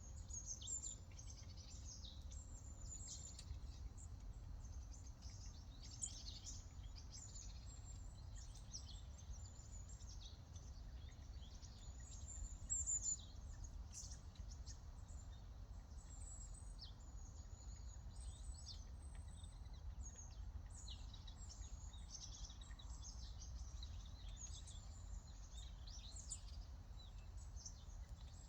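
Wild birds chirping and calling: many short, high chirps and quick trills, overlapping and coming thick and fast throughout, over a low, steady rumble.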